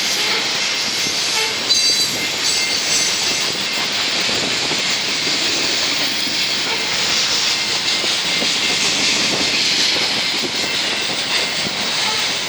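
BNSF coal train cars rolling past at speed: a steady rush and hiss of steel wheels on the rails, with a brief high squeal about two seconds in.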